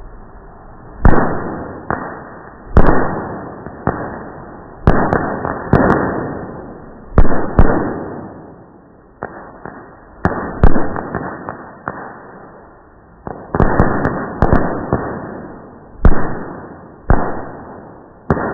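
Fourth of July fireworks going off in slow motion: a string of sharp bangs, roughly one a second, each fading out over about a second, with a few landing in quick pairs.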